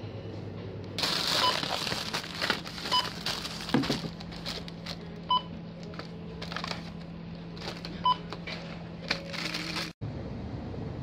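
Shop checkout scanner beeping four short times as items are scanned, over crinkling plastic packaging and items being knocked down onto the counter.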